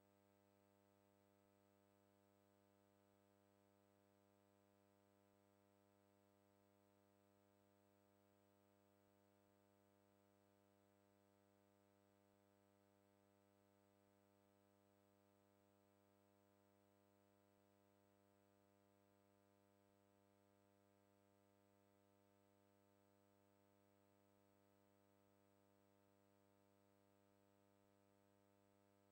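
Near silence: only a very faint, steady hum with no other sound.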